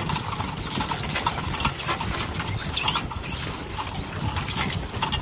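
Squid-jigging machine hauling line over its rotating rollers, with irregular clicks and knocks as squid come off the jigs and drop into the boat, and water splashing off the line.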